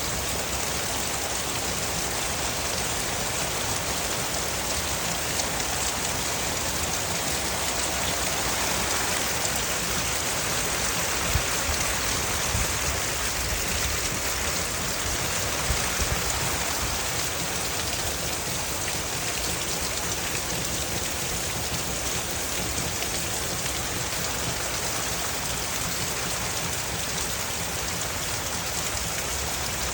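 Steady rain falling, an even hiss throughout, with a few sharper drop-like taps around the middle.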